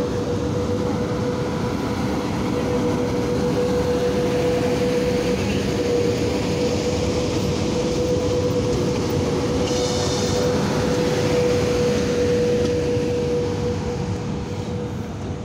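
VL80T electric locomotive moving slowly past: a steady whine over the rumble of its wheels and running gear. A brief high-pitched sound comes about ten seconds in, and the sound fades a little near the end as the locomotive draws away.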